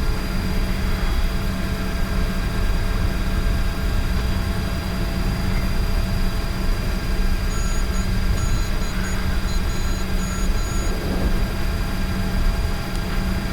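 Steady cockpit noise of a Bombardier Challenger 605 with its General Electric CF34 turbofan engines running at low power on the ground, a constant low hum under a steady whine. A faint, broken high-pitched beeping comes in about halfway through and stops a few seconds later.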